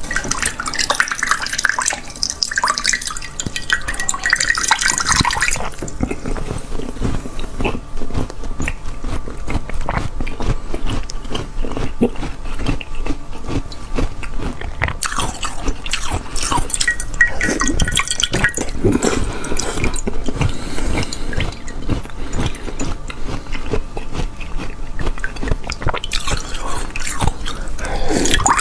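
Frozen slush ice being bitten and chewed close to the microphone, a dense run of irregular crunches and crackles, with meltwater dripping and splashing into a glass dish.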